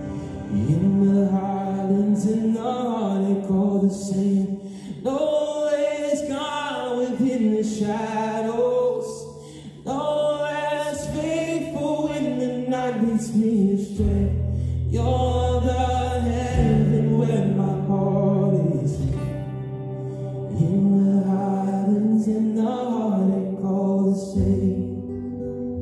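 Live worship song: a man singing phrases at a microphone over sustained low held chords, with acoustic guitar accompaniment.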